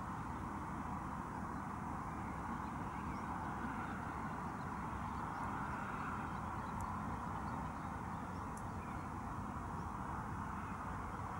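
Steady outdoor ambience by open water: an even hiss over a low rumble, with a few faint bird chirps scattered through it.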